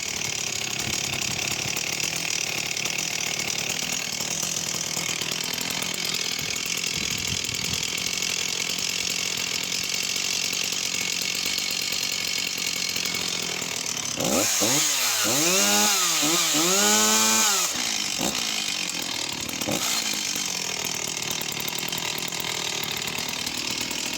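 Stihl 024AV two-stroke chainsaw engine idling steadily, then revved up and let back down three times in quick succession about two-thirds of the way through, settling back to idle and shutting off at the very end.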